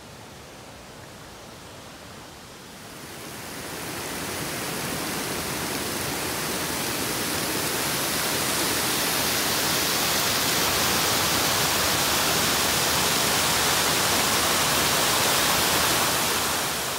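Waterfall, muddy and swollen with floodwater, pouring into a rock canyon: a steady rush of falling water that grows louder from about three seconds in, holds, then cuts off just before the end.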